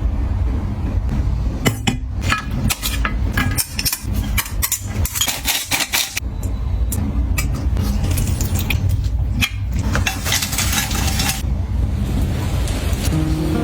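Kitchen work: dishes and utensils clinking and knocking over a steady low hum, with two rushes of hiss partway through.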